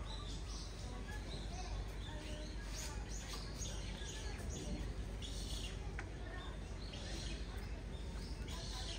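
Small birds chirping in short, repeated high calls over a steady low background murmur.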